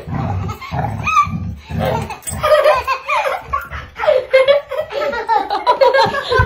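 Hearty laughter in quick, repeated bursts.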